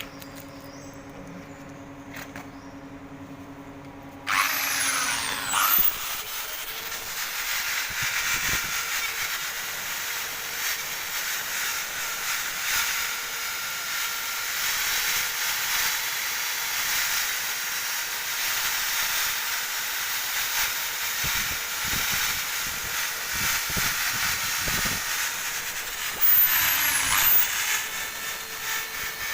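Electric drill fitted with a wire brush spinning up about four seconds in, then scrubbing steadily over the metal of an engine block to strip dirt and rust. Near the end it briefly slows and speeds up again.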